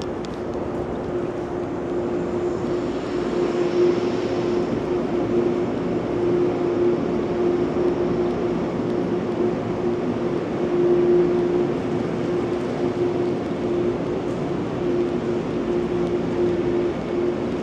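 A steady mechanical drone with one constant humming tone running through it, like a large engine or machine running.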